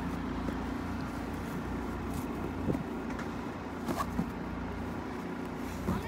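Steady low hum of distant road traffic, with a few faint knocks and scrapes about three and four seconds in as a child shifts on a plastic sled in the snow.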